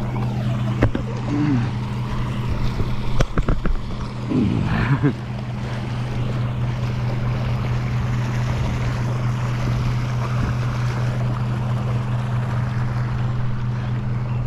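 Constant rush of water from a warm-water discharge outflow over a steady low hum. A few knocks and clicks of handling come in the first few seconds, with a brief voice-like sound about five seconds in.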